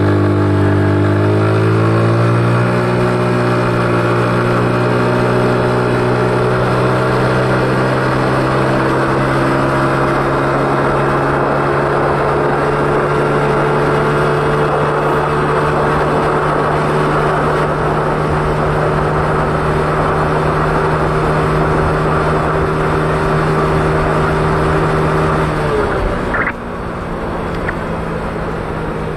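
Yamaha Mio Sporty scooter's air-cooled single-cylinder four-stroke engine, running on diesel-grade engine oil, accelerating hard. Its revs climb over the first couple of seconds and then hold at one steady pitch as the automatic belt transmission carries the speed up, with wind and road noise over it. Near the end the throttle is closed and the engine note drops away.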